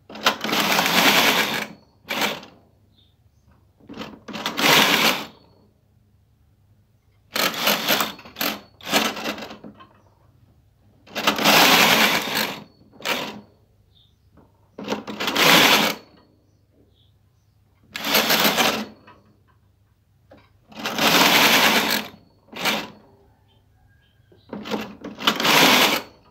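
Brother KH-831 punch-card knitting machine carriage pushed across the needle bed, row after row, knitting a two-colour pattern. Each pass is a rasping slide of about a second, about eight passes in all, many followed by a brief click.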